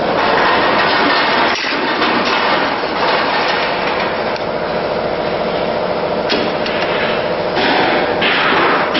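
Loud, continuous metallic workshop clatter, with one sharper knock about a second and a half in.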